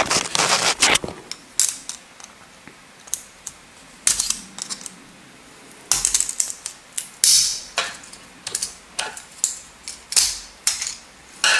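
A small screwdriver prying a rotary encoder with push button off a dimmer's circuit board: irregular clicks and scrapes in scattered bursts, the busiest in the first second and again around the middle.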